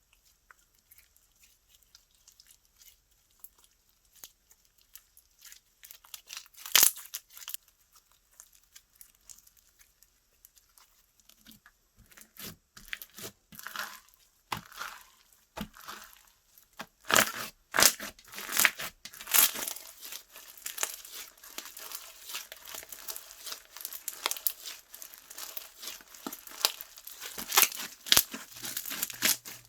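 Slime being pressed and stretched by hand, giving many small sticky clicks and pops. It is sparse at first, with one loud pop about seven seconds in, then becomes dense and nearly continuous from a little before halfway.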